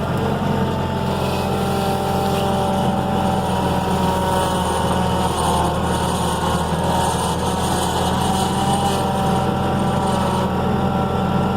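Skid steer engine running steadily under load, with a higher whine riding over its low drone.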